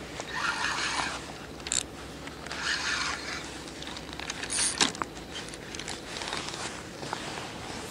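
A feeder rod being cast and its spinning reel worked: short rushes of line zipping off the spool and through the rod guides, with a few small reel clicks.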